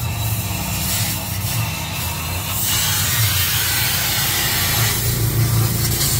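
Oxy-fuel gas torch flame hissing steadily against a steel exhaust pipe, getting louder about two and a half seconds in, over a steady low hum.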